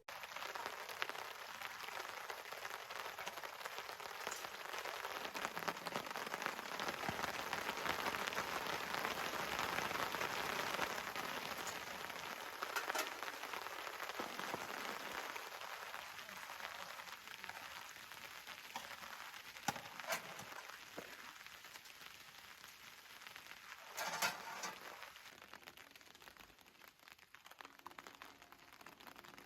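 Steady rain pattering on a surface, with a few sharper drop hits.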